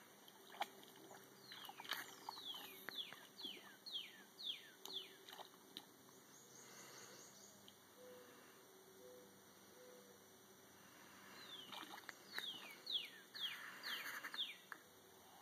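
A songbird singing a run of sharply falling notes, about two a second, faint; the song comes in two bouts, one starting about a second in and another near the end.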